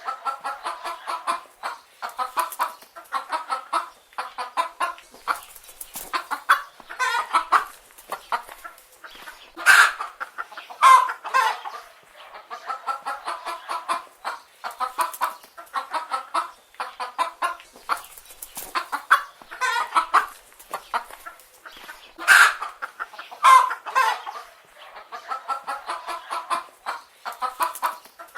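Chicken hens clucking continuously in runs of short calls, with a few louder squawks standing out now and then.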